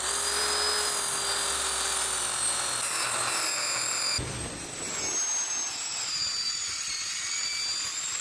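Circular saw running and cutting lengthwise along black ABS plastic pipe, its blade set very shallow. The motor's steady whine drops slightly about four seconds in.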